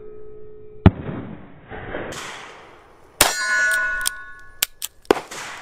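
Taurus 856 Defender .38 Special revolver firing: a loud sharp shot about a second in, then a second shot about three seconds in followed by a metallic clang that rings on for over a second. A few light clicks come near the end.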